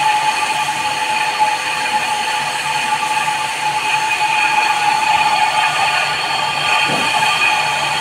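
Lathe facing a paper plate die: the cutting tool scrapes across the spinning metal face with a steady high-pitched metallic screech over the running hum of the machine. The die face is being turned down to reduce its excess depth.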